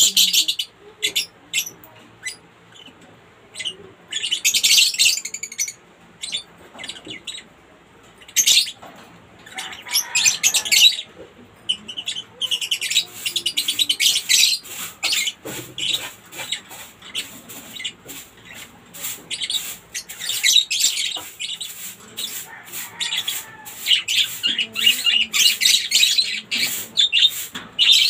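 African lovebirds chirping and squawking: shrill, high calls in bursts, with a long run of rapid chirps through the second half.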